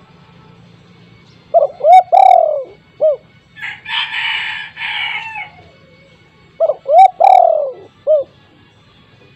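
Spotted dove (tekukur) cooing twice. Each phrase is two short coos, a long falling coo and a last short coo. Between the two phrases there is a harsh, buzzy burst about two seconds long.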